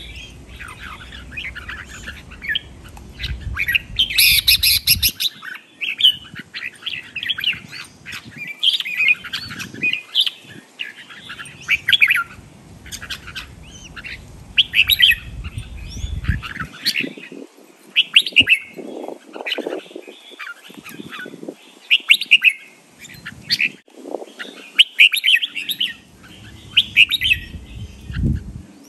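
Caged red-whiskered bulbul singing: short, bright warbled phrases repeated every second or two, with a brief rattle about four seconds in.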